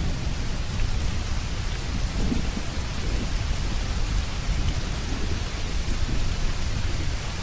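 Heavy rain falling steadily, with low rolling thunder rumbling underneath.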